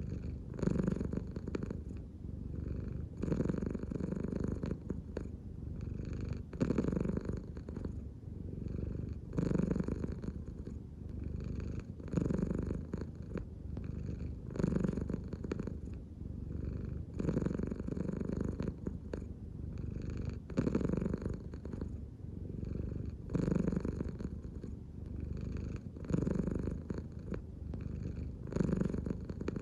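American Shorthair cat purring steadily, the purr swelling and easing with each breath, louder about every two and a half to three seconds as the belly rises and falls: a relaxed cat breathing from the belly.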